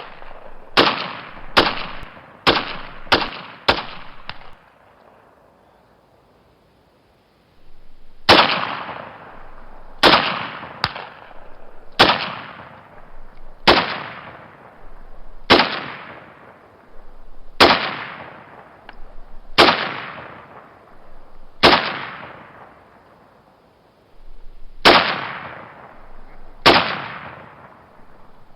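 Gunshots: a quick run of five shots about half a second apart, then a few seconds' pause, then single shots roughly every two seconds, each ringing out in a long echoing tail.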